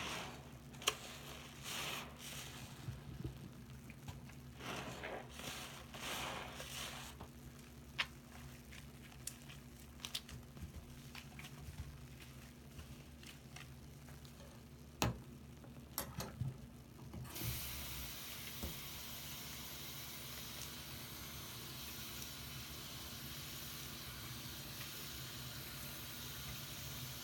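Soapy sponges squeezed and squished in a foam-filled sink: irregular wet squelching bursts with a few sharp clicks. About two-thirds of the way through, running tap water starts with a steady hiss.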